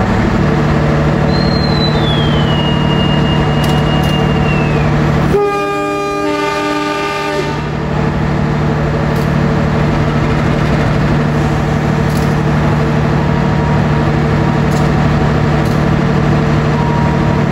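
Diesel-electric locomotive idling with a steady low hum at a station. About five seconds in, a train horn sounds once: a chord lasting about two seconds. Shortly before the horn, a thin whistle slides down in pitch.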